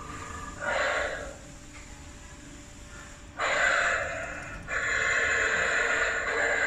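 Animatronic werewolf prop's speaker playing breathy snarls and growls in bursts, louder from about three and a half seconds in. Near the end a long, drawn-out pitched cry begins.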